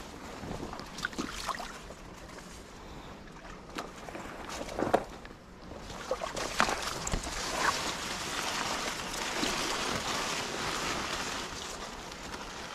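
Rushing river water and wind on the microphone, with short rustles and snaps of reed leaves brushing past; the hiss grows fuller about halfway through.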